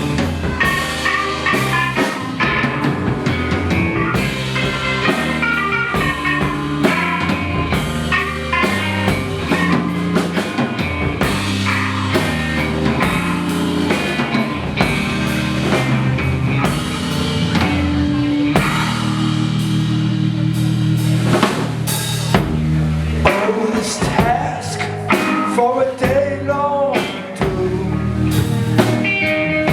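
Instrumental intro of a rock song: a drum kit keeping a steady beat under pitched band instruments.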